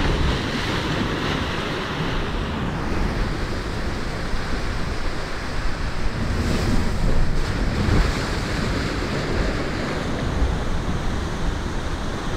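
Sea surf washing in steadily, with wind buffeting the microphone; the surf swells louder a little past halfway.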